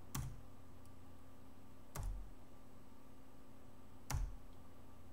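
Three single keystrokes on a computer keyboard, about two seconds apart, each a sharp click with a dull knock. A faint steady hum lies under them.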